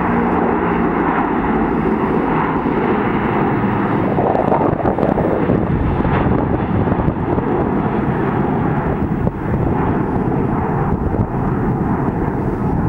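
Boeing 777 twin-engine widebody jet climbing out after takeoff, its engines at takeoff thrust making a steady, loud roar with a deep rumble and a faint steady hum underneath.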